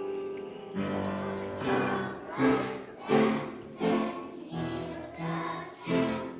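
A kindergarten class singing a song together in unison, in short rhythmic sung phrases.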